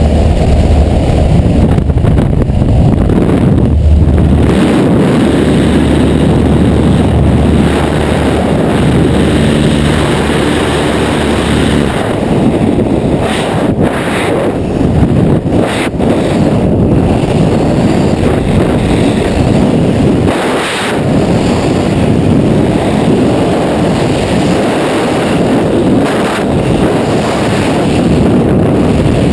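Heavy wind buffeting a helmet-mounted camera's microphone in skydiving. For about the first twelve seconds a small propeller plane's engine drones steadily underneath the wind at the open door. After that only the rushing freefall wind remains, fluttering now and then.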